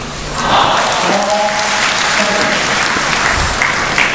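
Spectators applauding, swelling about half a second in and holding steady.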